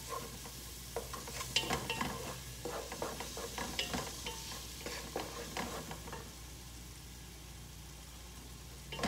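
Wooden spoon stirring chopped onions in a pot, with repeated knocks and scrapes against the pot, over a steady sizzle of onions sautéing in olive oil. The stirring stops about six seconds in, leaving only the sizzle.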